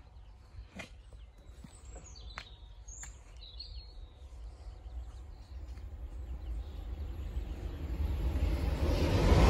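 Birds calling with a few sharp chirps, then the rising rush of an approaching electric passenger train on the line, growing steadily louder over the last few seconds.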